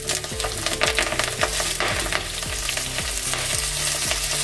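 Fresh, moist pirandai (adamant creeper) stems dropped into hot sesame oil in an iron kadai, sizzling and crackling hard with many sharp pops as the wet green stems hit the oil.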